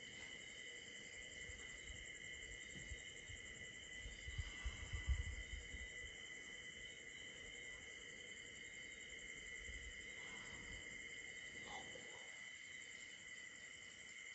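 Night insects, such as crickets, chirring steadily in high, even tones. A short low rumble about four to five seconds in is the loudest sound.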